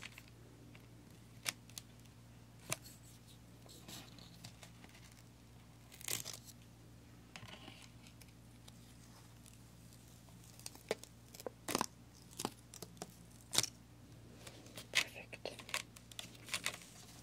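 Protective backing film being lifted with a wooden pick and peeled from the adhesive of a sand-art board: scattered sticky crackles and short tearing sounds, coming more often in the last few seconds.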